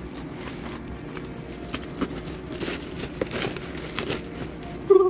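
Plastic packaging and bubble wrap being handled, crinkling, with scattered crackles. Near the end a short, louder pitched tone comes in.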